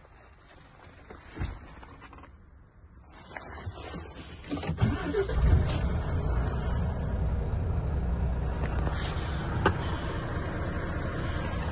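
2017 Volvo FM420 tractor unit's 13-litre straight-six diesel engine starting, heard from inside the cab: it cranks and catches about four to five seconds in, then settles into a steady idle. A single sharp click comes near the end.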